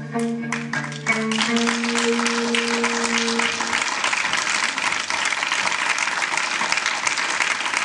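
Audience applause that starts about half a second in and grows into dense, steady clapping, while the last notes of an electric guitar ring out and fade over the first three or four seconds.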